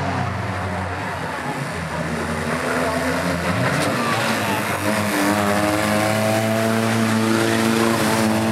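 Banger racing cars' engines running hard around the track; one engine climbs in pitch about four seconds in and then holds a high, steady note.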